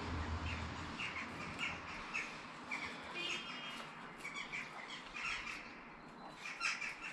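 Small birds chirping over and over, short high calls repeating every half second or so.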